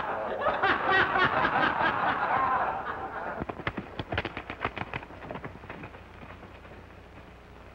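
A man laughing in snickering bursts that die away about three seconds in, followed by a quick run of sharp knocks.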